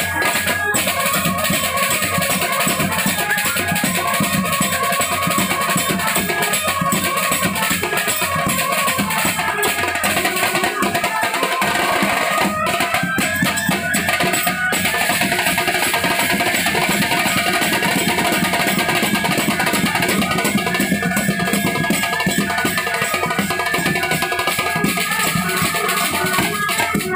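Dhol-tasha banjo band playing: large barrel dhol drums and snare-style side drums beaten with sticks in continuous dense drumming. Over the drums runs a melody on an amplified Indian banjo, played through horn loudspeakers.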